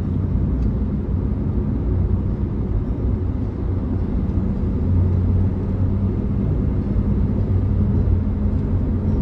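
Steady low drone of a car's engine and road noise heard from inside the cabin while driving.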